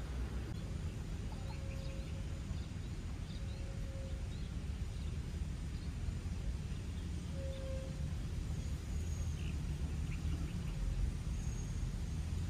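Outdoor ambience: a steady low rumble with faint, scattered bird chirps over it.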